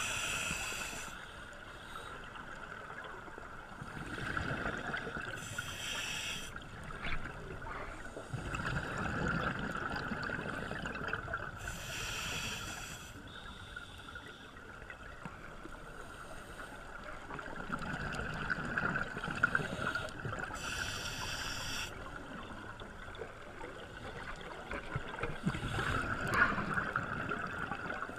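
Scuba regulator breathing underwater: a short hissing breath about every seven seconds, with longer bubbling exhalations between them.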